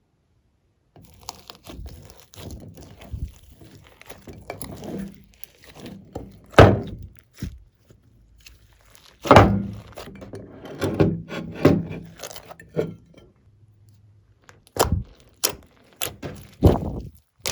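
Glossy slime being kneaded and pressed by hand, with sticky clicks and pops throughout and two heavy thuds, one about six seconds in and one about nine seconds in.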